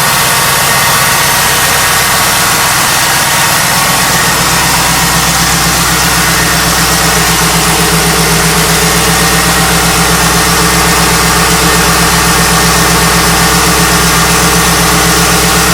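1998 Pontiac Trans Am's LS1 V8 idling steadily, with an even low pulse.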